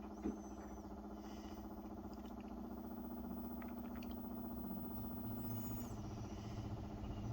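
Samsung WA50R5200AW top-load washing machine running with one pair of pants, a badly unbalanced load; its motor gives a steady hum. A slightly higher hum joins about three seconds in and stops near six seconds, and there is a short knock just after the start.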